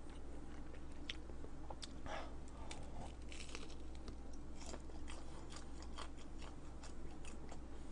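A person chewing a mouthful of food, faint, with scattered light clicks.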